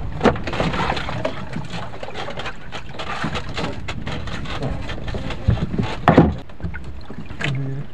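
Steady wind and sea noise aboard a small wooden outrigger boat, with a few sharp knocks against the wooden hull, the loudest about six seconds in.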